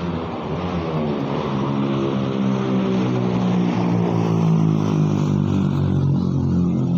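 Road traffic passing close by: car and van engines with tyre noise, building to loudest about halfway through as a van goes past.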